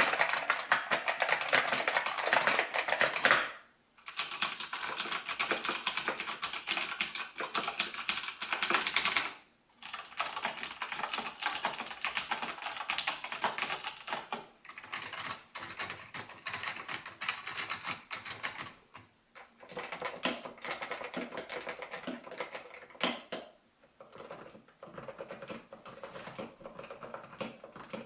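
Typing on a series of mechanical keyboards with different switch types (Cherry MX, buckling spring, quiet ALPS and Topre), in six short runs of rapid key clicks with brief pauses between them. The later runs are noticeably quieter than the first two.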